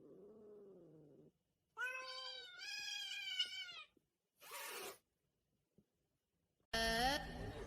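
Domestic cat meowing: a faint low call, then a loud, drawn-out, wavering meow about two seconds long, followed by a short breathy burst of noise. A different louder sound with gliding pitches comes in near the end.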